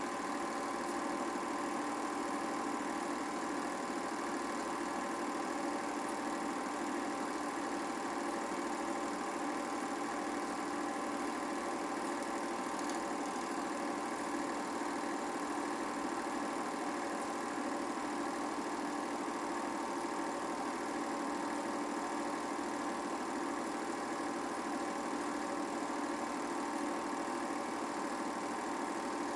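Film projector running: a steady, unchanging mechanical hum.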